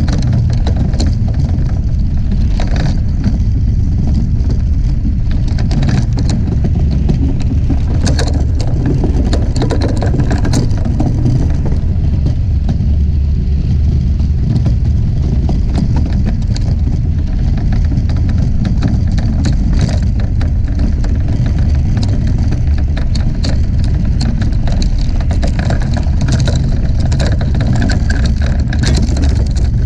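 A DN iceboat's steel runners running over smooth lake ice at speed: a loud, steady low rumble with many short, sharp ticks and crackles from the ice.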